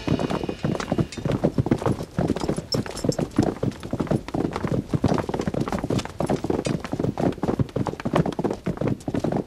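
Hooves of several horses clip-clopping at a walk on stone paving, a dense, irregular run of knocks, mixed with people walking.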